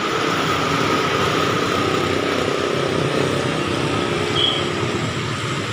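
Street traffic going by: small motorcycles and scooters and cars passing in a steady, continuous mix of engine and tyre noise, with a brief high squeak about four and a half seconds in.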